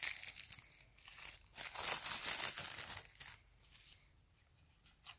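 Plastic packaging of a pair of sunglasses crinkling and tearing as it is unwrapped by hand, in bursts, loudest from about a second and a half in to three seconds, then dying away.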